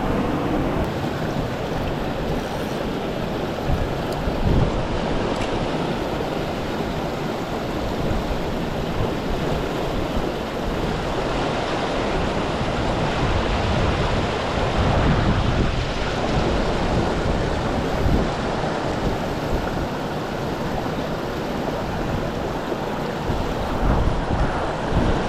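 Steady rush of a small waterfall and stream water, with a few low gusts of wind on the microphone.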